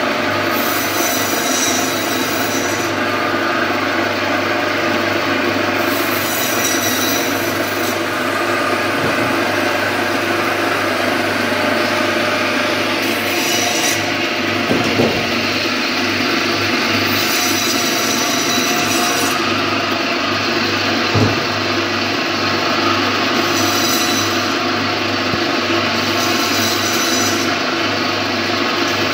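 Electric band saw running with a steady motor hum while its blade cuts through whole fish into steaks. A higher hiss comes and goes with the cuts, about seven times, and there are two brief knocks near the middle.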